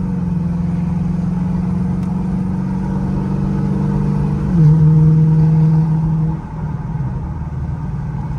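Sixth-generation Camaro's engine and exhaust heard from inside the cabin while driving: a steady drone. About four and a half seconds in, its pitch steps down and it gets louder, then eases off about two seconds later.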